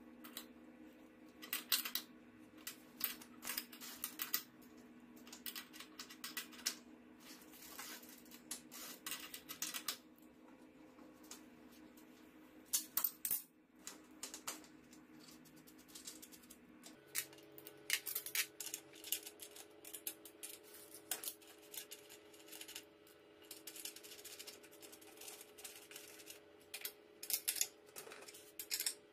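Scattered metallic clicks and clinks of a steel open-end wrench and loose bicycle crank and pedal parts being handled on a tile floor. A faint steady hum runs underneath and shifts in pitch about halfway through.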